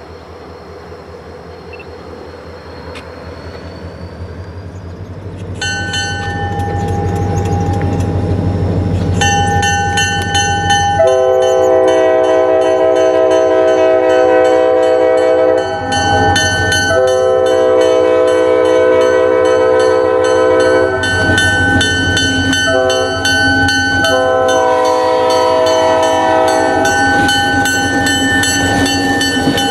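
EMD SD40-2 diesel locomotives hauling a passenger train come closer, their low engine rumble growing louder, and the lead unit sounds its multi-note air horn in a series of long blasts with brief breaks, starting about six seconds in.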